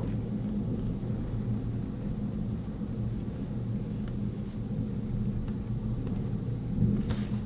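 A steady low rumble, with a few light metallic clicks from a Swiss Army knife's cap lifter being opened and worked, the last a little before the end.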